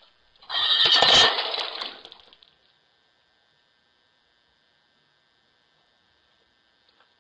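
A loud crash of something shattering on the concrete front walk, starting about half a second in and breaking up over about two seconds. Under it runs a faint steady electrical whine from the doorbell camera.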